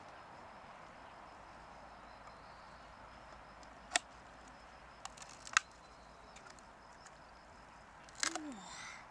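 A knife prying at a large purple clam: two sharp clicks of the blade on the shell about a second and a half apart, a few small ticks, then a short scraping, squelching sound near the end as the shell gives.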